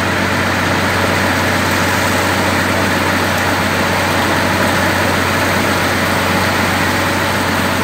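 Steady drone of a motor vehicle's engine running, with an even rushing noise over it that holds at one level throughout.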